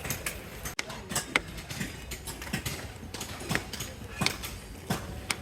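Irregular sharp clacks and knocks of hard objects, about one or two a second, over a steady low background hum.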